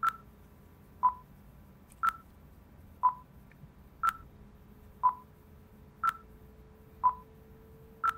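Short electronic beeps, one each second, alternating between a higher and a lower tone. It is a beep sound effect with every other beep pitched up five semitones, ticking off the seconds of a digital clock.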